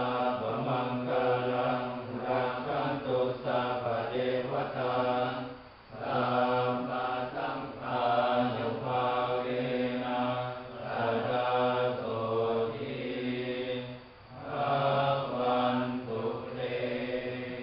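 A group of Buddhist monks chanting together in unison, in steady low voices, with short pauses for breath about six and fourteen seconds in.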